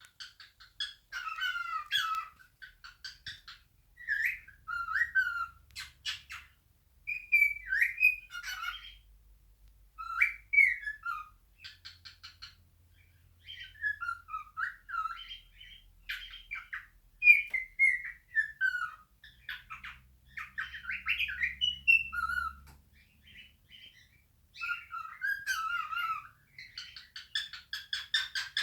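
Male cockatiel singing its natural song: phrases of whistled notes gliding up and down, broken by short pauses, mixed with runs of fast chattering.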